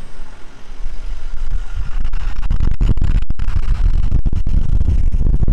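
Wind buffeting the phone's microphone outdoors: a loud, unsteady low rumble that cuts in and out and grows stronger about two seconds in.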